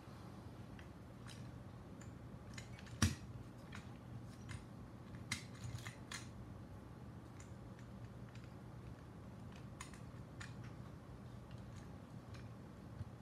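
Scattered small clicks and taps of hands handling a drone frame and its circuit board, with one sharper knock about three seconds in, over a steady low hum.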